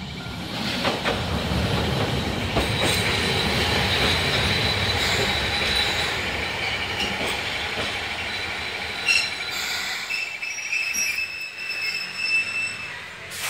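Hiroshima Electric Railway 3700-series articulated tram pulling into the stop: wheels rumbling on the rails under steady high-pitched wheel squeal. The rumble swells about a second in and eases after about nine seconds as the tram slows, leaving thinner high squeals and a few clicks.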